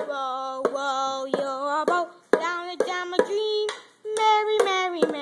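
A pair of small bongo drums struck by hand, roughly twice a second, keeping time under a sung children's song.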